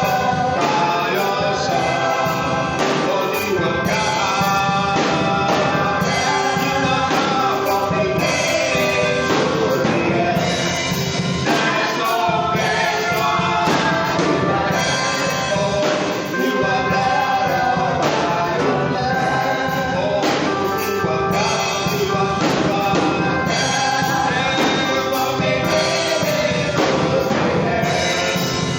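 Choir and congregation singing gospel music with a band, a steady beat running throughout.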